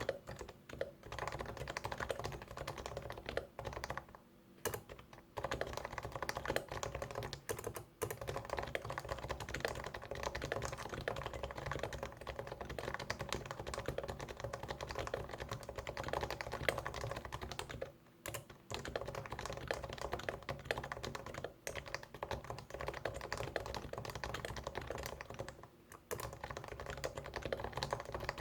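Fast, continuous typing on a computer keyboard, with quick runs of keystrokes broken by short pauses about four, eight, eighteen and twenty-six seconds in.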